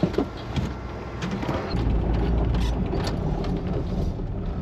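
A few light clicks and knocks, from the plastic tool tub being unlatched in the pickup's bed, then from about two seconds in the steady low running of the 1985 Toyota pickup's engine, heard from the cab.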